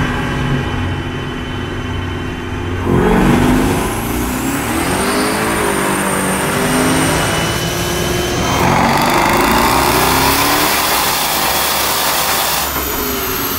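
2018 Chevrolet Camaro ZL1's supercharged V8 running on a chassis dynamometer. It idles for about three seconds, then goes into a hard full-throttle pull with the revs climbing. The pull is cut off abruptly near the end.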